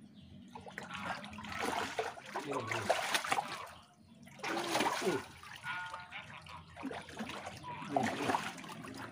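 Muddy water splashing and trickling in uneven bursts as hands grope for big catfish in a shallow, half-drained pond, with a brief lull about four seconds in.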